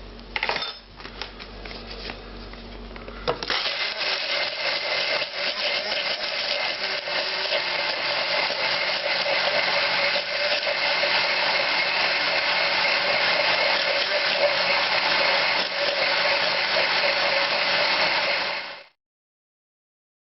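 Countertop blender puréeing sautéed onions with olive oil and salt, running at a steady pitch for about fifteen seconds. It follows a few knocks and clicks at the start and cuts off suddenly near the end.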